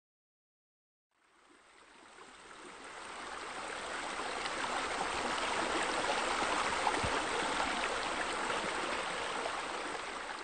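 Steady running, splashing water that fades in about a second in and fades out at the end, with one short tick about seven seconds in.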